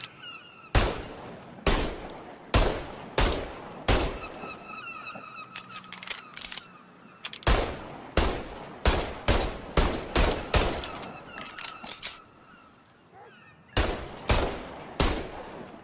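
Service revolver firing a series of sharp single shots in uneven groups: several spaced shots, a quicker run of about eight, then three more near the end, each with a short echoing tail.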